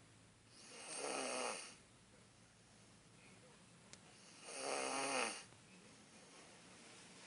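A sleeper snoring: two snores about three and a half seconds apart, each lasting just over a second and dropping in pitch at its end.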